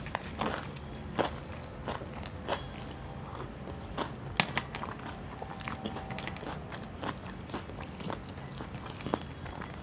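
A person biting and chewing fried mirchi pakoda (gram-flour-battered green chillies) close to the microphone. Irregular crunchy clicks and wet mouth sounds come about every half second, with one sharper click about four and a half seconds in.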